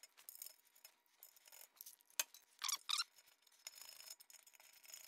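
Faint clicks of small hardware being handled: M6 bolts, flat washers and nylon-insert lock nuts being fitted to an aluminium skid plate. About halfway through there is a sharp click and two short squeaks, and a light rasping sound starts near the end as the fasteners are tightened.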